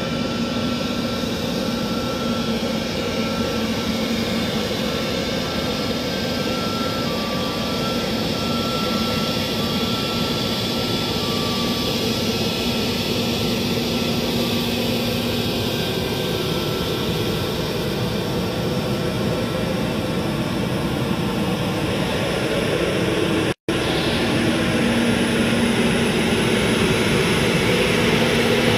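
Airbus A320-family airliner's twin jet engines running at taxi power: a steady jet rumble with a thin whine on top. Late on the sound drops out for an instant, then carries on a little louder.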